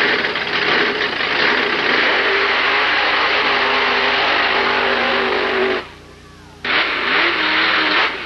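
Mud-racing vehicle's engine running hard, its pitch climbing slowly under a dense roar. The sound cuts out abruptly for under a second about six seconds in, then an engine comes back in, its pitch dipping and rising again.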